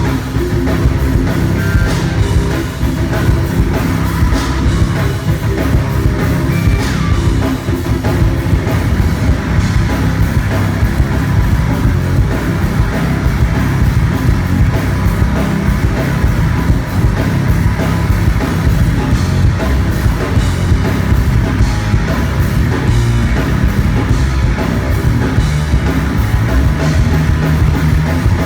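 Loud rock music with drums and guitar, playing continuously.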